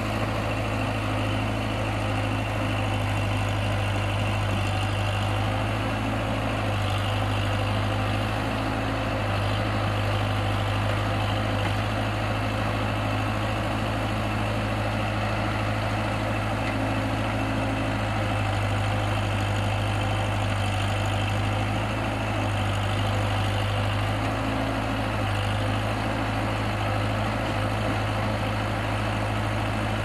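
Diesel engine of a Case 580D backhoe loader running steadily with a deep hum, swelling a little now and then as the rear backhoe arm works in the ditch.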